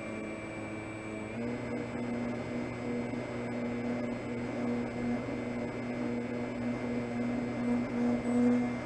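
Electric motor and propeller of an FMS J-3 Cub radio-controlled scale plane running at steady throttle: a steady hum whose pitch steps up about a second and a half in, swelling louder near the end.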